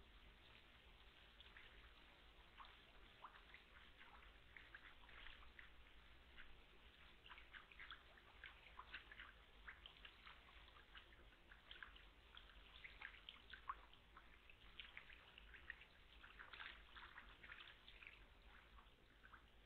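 Faint, irregular small splashes and drips of water from mallards swimming and preening on a pond, over a low steady hum.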